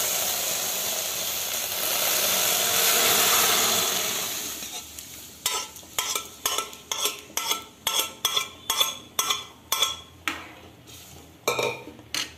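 Boiled moong beans sizzling in a hot metal kadai; the sizzle fades after about four seconds. From about five seconds in, a metal ladle clinks against the kadai about twice a second as the contents are stirred.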